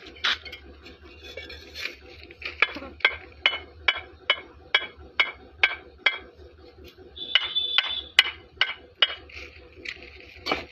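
Two fired clay bricks knocked together again and again, each strike a sharp ringing clink, about two a second. Near the middle there is one longer ringing knock, followed by a few more clinks.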